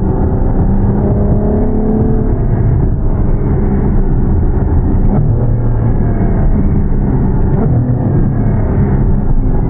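Ferrari F12 Berlinetta's 6.3-litre V12 running at light throttle, heard from inside the cabin while driving. Its pitch eases down slightly over the first few seconds, then holds steady.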